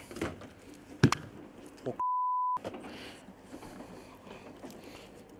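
A censor bleep: one steady, high beep of about half a second, roughly two seconds in, with all other sound cut out beneath it. About a second in, a single sharp knock.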